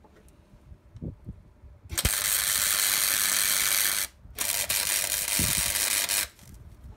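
MIG welding arc sizzling in two runs of about two seconds each, the first starting about two seconds in after a click, with a short break between. The welds are joining a piece of scrap steel angle to a Land Rover chassis rail to hold its sections in alignment.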